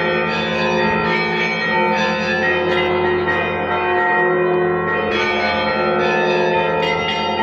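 Russian Orthodox church bells ringing together: many bells of different pitches overlap in one continuous peal, and new strokes land every second or two while the earlier ones are still sounding.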